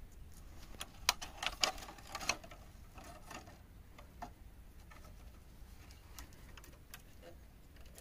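Scattered small clicks and crackles from hands working a cut plastic water bottle into place under a dry tree branch, in a cluster about one to two and a half seconds in, then sparser.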